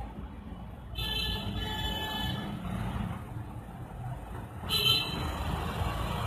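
Street traffic rumble with vehicle horns honking: a longer honk of about a second and a half starting about a second in, and a short, louder toot near the five-second mark.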